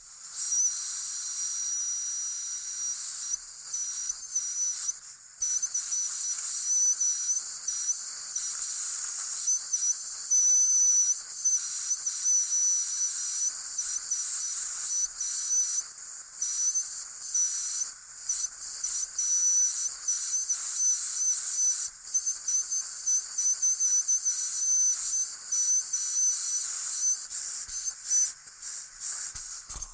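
Dentist's high-speed drill giving a high-pitched whine over a hiss of air, stopping briefly and starting again every few seconds.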